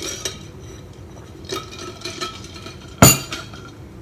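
Dishes and glassware being handled: a few light clinks with a short ring, then one sharp knock about three seconds in, the loudest.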